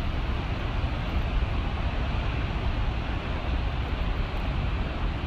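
Steady wash of heavy ocean surf, with wind rumbling on the phone's microphone.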